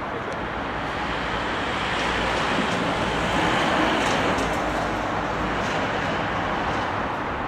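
Steady road traffic noise from passing cars, swelling a little in the middle.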